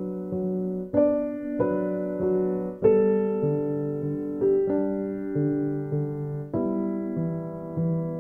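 Background piano music: soft notes and chords struck about once a second, each ringing out and fading.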